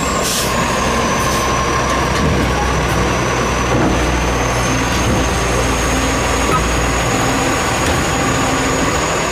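Automated side-loader garbage truck running at the curb while its hydraulic arm lifts and tips a wheeled cart into the hopper. The diesel engine and hydraulics make a steady rumble with a thin high whine over it.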